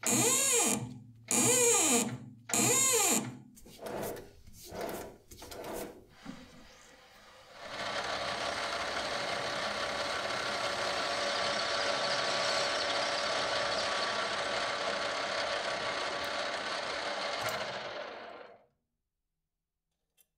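Twist drill boring into brass on a metal lathe in repeated short cuts, each loud and about a second long with a rising-and-falling pitch, the cuts getting shorter and quieter a few seconds in. From about eight seconds in, a machine tool makes a steady, even cut on a spinning metal workpiece for about ten seconds, then stops abruptly.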